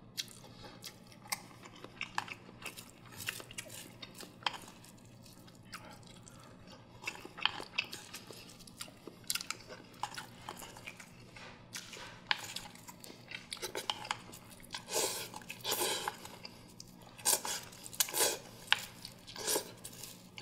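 Close-miked eating of soft steamed egg custard: wet chewing and mouth sounds, with a spoon clicking and scraping against an earthenware pot. The eating noises come thicker and louder in the second half.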